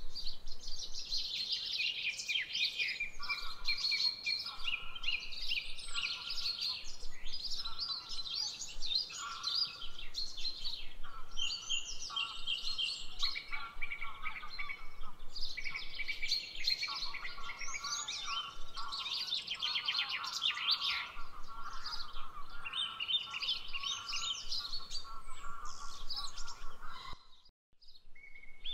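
Several songbirds singing and chirping at once in a busy, overlapping chorus, with a lower, repeating call beneath it from a few seconds in. The sound cuts out briefly near the end.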